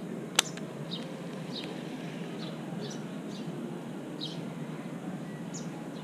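A bird calling in short high chirps, repeated roughly every half second to a second, over a steady outdoor hiss. A single sharp click sounds just after the start.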